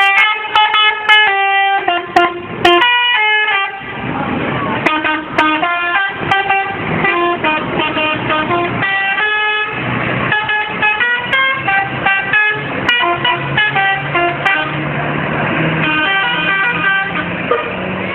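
Indonesian bus 'telolet' multi-tone horn playing a quick melody of short notes, with a brief lull about three to four seconds in.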